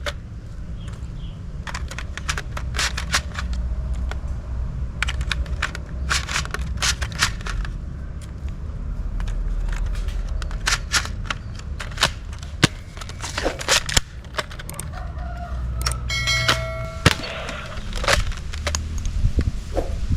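A toy shotgun firing: irregular sharp clicks and pops, several close together at times, over wind rumbling on the microphone. A brief call with a steady pitch, like a rooster's crow, sounds about sixteen seconds in.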